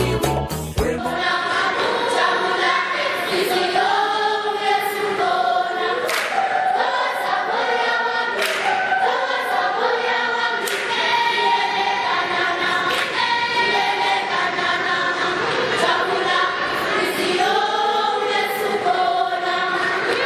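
A school choir of many young voices singing together unaccompanied. About a second in, a short stretch of music with a beat cuts off as the singing takes over.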